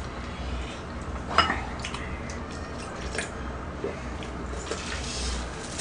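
Metal chopsticks clicking against a small ceramic bowl, with soft wet chewing and a few scattered light clicks over a low, steady room hum.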